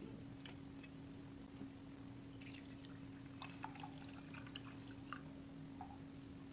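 Water poured from a plastic jug into a glass beaker of water, heard as faint scattered drips and small trickling splashes, mostly between about two and five seconds in, over a steady low hum.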